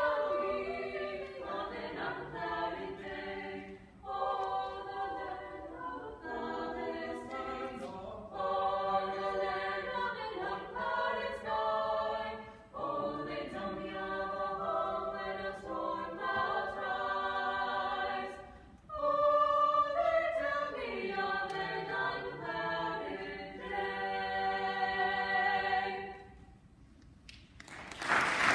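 Small a cappella vocal ensemble of six student singers, some parts sung by a single voice, singing sustained chords in phrases with short breaths between them. The singing ends near the end, followed by a brief hush and then applause breaking out.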